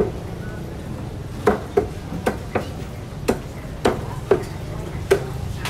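Butcher's cleaver chopping on a chopping block, about nine sharp, irregular blows a fraction of a second to nearly a second apart, over a steady low hum.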